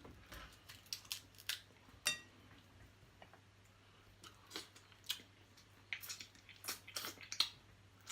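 Scattered sharp clicks and snips of scissors cutting into a small blue crab's claw shell, with a denser run of snaps a little before the end.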